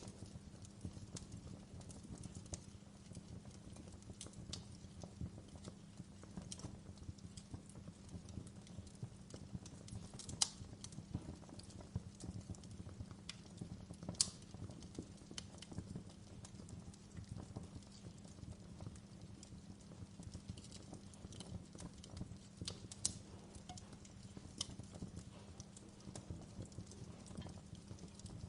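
Wood fire crackling: irregular sharp pops and snaps over a steady low rumble, with two louder pops about ten and fourteen seconds in.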